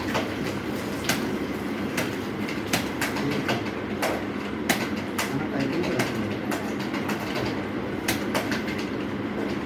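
Keyboard keys clicking at an uneven pace, about one or two sharp clicks a second, over a steady low hum.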